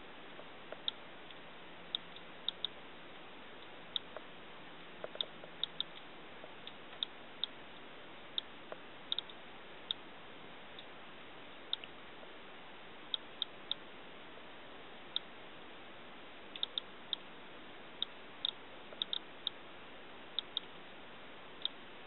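DRSB-01 Geiger counter clicking at random, irregular intervals, roughly one to two clicks a second, over a steady hiss. It is counting radiation at a roof downspout, a spot the owner takes for a radiation hotspot where rainwater runs off the roof.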